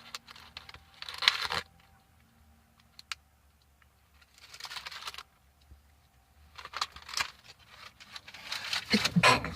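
A few short bursts of crinkling and rustling from handled packaging, then a man's loud sneeze near the end.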